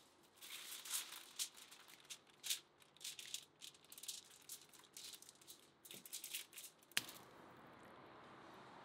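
Crisp roasted skin and meat of a spit-roasted whole chicken crackling and tearing as it is pulled apart by hand, in a run of dry crackles. A single sharp click comes near the end of the crackling.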